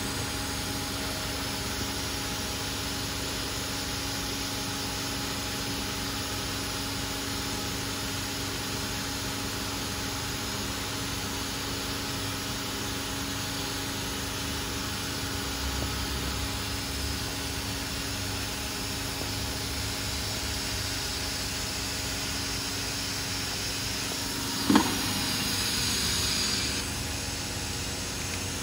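Steady hum of a powered-up Hurco VMX50 CNC vertical machining center, holding several steady tones. Near the end comes one sharp click, followed by about two seconds of hiss.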